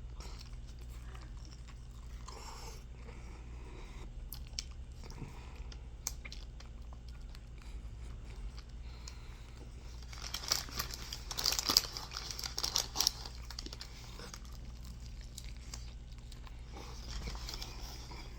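Eating at close range: crunchy chewing and bites mixed with paper crinkling, over a steady low hum. A burst of louder crunches and crackles comes about ten seconds in and lasts a few seconds.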